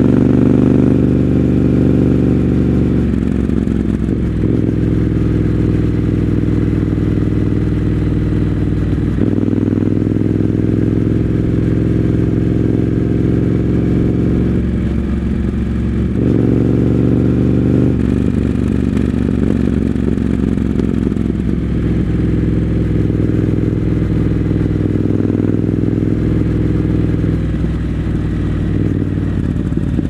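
Triumph Scrambler 900's parallel-twin engine running under way, heard from the rider's seat, its note shifting with the throttle several times.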